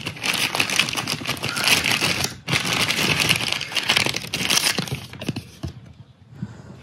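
Clear plastic zip-lock bags crinkling as they are handled, in two long stretches with a short break about two and a half seconds in, then dying down to a few faint rustles near the end.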